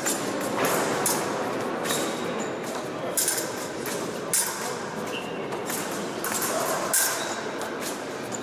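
Épée bout in progress: irregular sharp clinks and knocks, about one a second, of blades meeting and fencers' feet striking the piste, over a steady murmur of a large hall.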